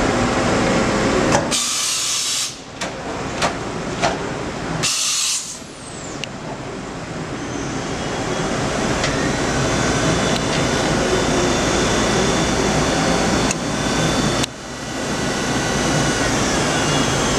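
Matsuura MC-500V2 CNC vertical machining center running, its spindle milling a steel block with an end mill, with a steady high whine. Two short bursts of loud hiss come in the first few seconds.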